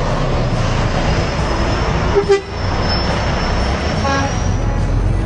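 A vehicle horn gives two short toots, the louder one a little past two seconds in and another about four seconds in. Under them is the steady rumble of the Volvo truck's diesel engine, heard from inside the cab.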